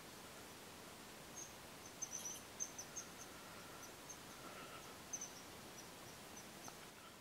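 Quiet forest background with a scattered run of faint, short, high-pitched chirps from a small wild creature, starting about a second and a half in and lasting until near the end.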